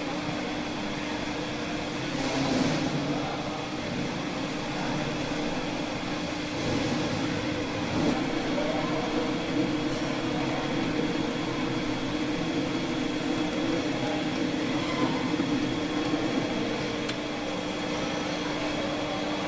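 Metal lathe running, spindle turning a steel rod with a trapezoidal thread, giving a steady hum with a faint high whine. The sound grows louder and rougher for several seconds in the middle.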